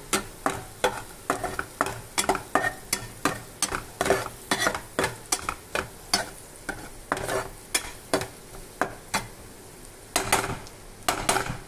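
Metal spatula scraping and tapping against a non-stick kadai, about two to three strokes a second, as chopped onions and crushed black pepper are stirred in frying butter. A faint sizzle runs underneath, and there are a couple of longer, louder scrapes near the end.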